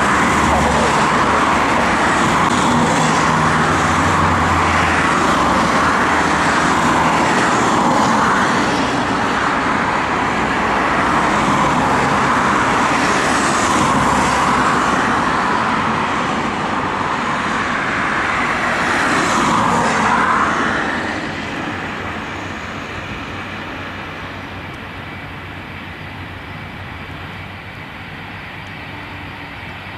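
Jet airliner's engines at takeoff power on the runway, a loud steady roar with a slow rising-and-falling whoosh as the aircraft passes, fading away after about twenty seconds.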